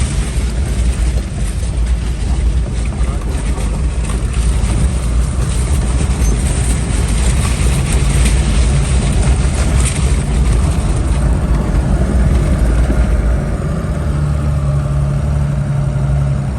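Engine of an off-road 4x4 running under load as it drives through sand, a steady low drone. Near the end the engine note settles into a steadier, slightly higher hum.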